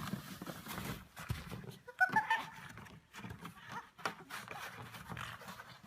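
A short animal call about two seconds in, among scattered clicks and knocks.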